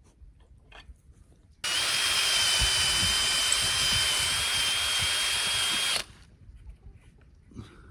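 Power drill running steadily for about four seconds with a constant high whine, starting and stopping abruptly, as it bores a pilot hole into a wooden fence post.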